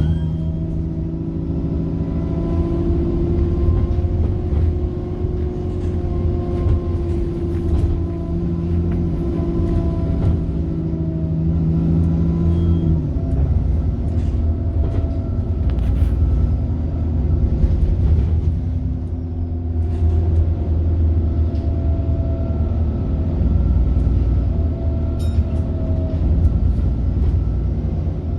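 Bus engine and driveline running under way, a constant low rumble with a thin high turbocharger whine above it. The engine note holds steady, then drops away about 13 seconds in before building again.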